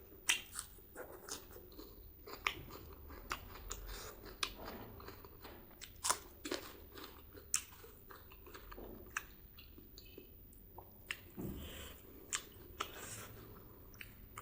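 Close-miked chewing and biting of spicy pork and rice: irregular wet smacks and crunchy clicks from the mouth.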